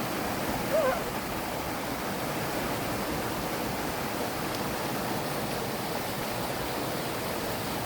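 Mountain valley stream, water rushing steadily.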